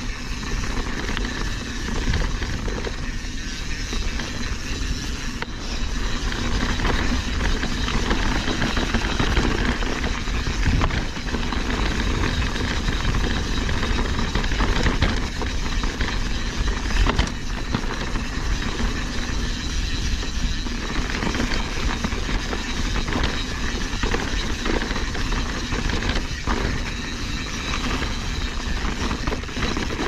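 Mountain bike riding over rough, rocky trail: the tyres on rock and the bike rattling, with a steady rush of wind noise and small knocks throughout.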